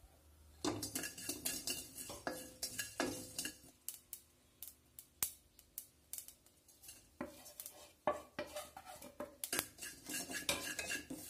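A wooden spatula and spoon stir and scrape dry seeds and spice powders around a nonstick pot, with repeated knocks and scrapes against the pan. The spices are being dry-roasted without oil. The stirring thins out for a few seconds in the middle, then picks up again.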